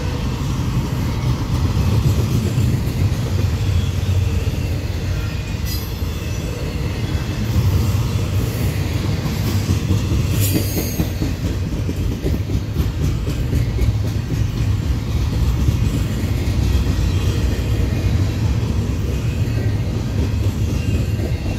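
Loaded double-stack container well cars of a CN freight train rolling past, a steady heavy rumble of steel wheels on rail. Brief high-pitched wheel squeals come about six seconds in and again around ten seconds in.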